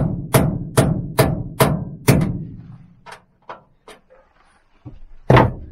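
Hammer striking the van's sheet-metal wall: six sharp knocks at about two and a half a second, then three lighter taps, then one hard blow near the end.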